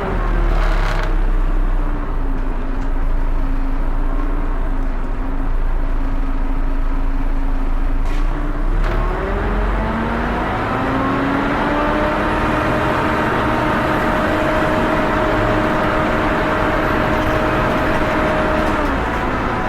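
Volvo B7TL bus engine running with its very loud cooling fan, a hoover-like whine. The pitch drops at the start, holds low, climbs about ten seconds in and holds higher, then falls again near the end.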